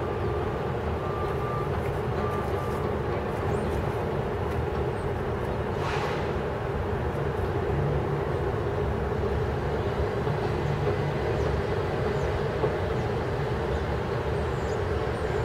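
A steady low rumble of background noise with no pauses, and a brief hiss about six seconds in.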